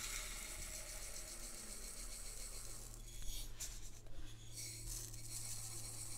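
Soft handling of plastic jars of powdered herbs and a plastic measuring cup as powder is tipped out, with brief scratchy rustles about three and four seconds in.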